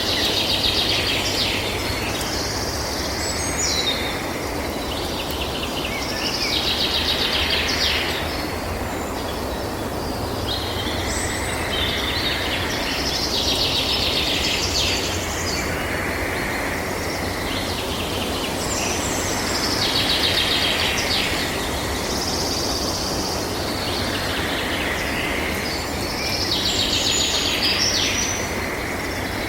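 Outdoor nature ambience: a high, trilled animal call of about two seconds repeats every six seconds or so over a steady low background noise.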